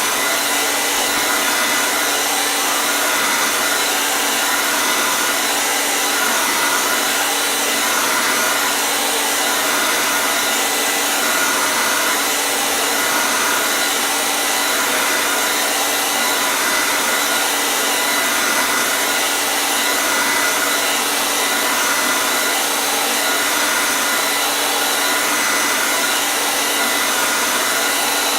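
Hair dryer running steadily, a constant rush of blown air with a faint steady motor tone under it.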